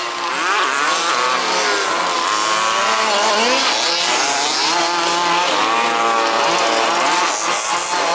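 Several 1/5th-scale RC buggies' small two-stroke petrol engines racing, revving up and down as they brake and accelerate, their pitches overlapping and gliding against each other.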